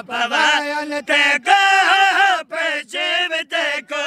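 Male voices chanting a mournful Punjabi lament in long, wavering sung phrases with short breaks between them. The lament is in the style of a zakir's recitation at a majlis.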